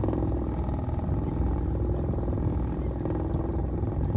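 Small outboard motor running steadily, a continuous rapid pulsing engine sound.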